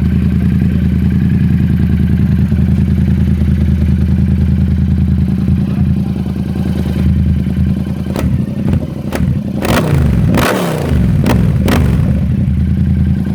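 Yamaha MT-07's parallel-twin engine running through an F4 Evolution aftermarket sport exhaust, loud, idling steadily at first. About eight seconds in the throttle is blipped several times in quick succession, the revs rising and falling, before it settles back to idle.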